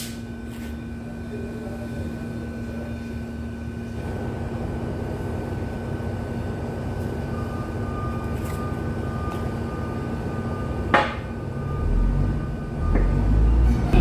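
Steady mechanical hum with a couple of constant tones, a single sharp knock about eleven seconds in, and a low rumble building near the end.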